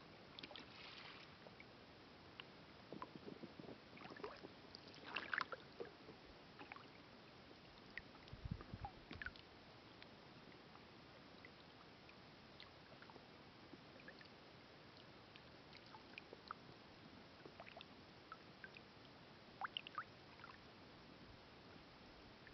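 Near silence around a kayak on still river water: faint scattered drips and ticks, with a soft low knock about eight seconds in.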